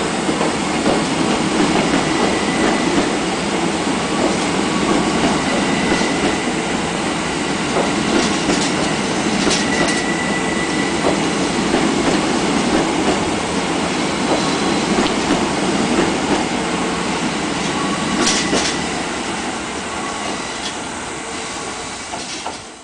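New JR East E353 series cars, unpowered and hauled as a freight delivery, rolling past on the rails: a steady rumble of wheels with a few clacks over rail joints and a faint wheel squeal. The sound fades over the last few seconds as the last car clears.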